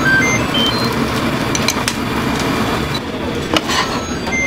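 Steady roar of a commercial kitchen with gas burners lit under earthenware pots, overlaid with sharp metal clicks and knocks, the loudest about three and a half seconds in, and a few short high-pitched tones.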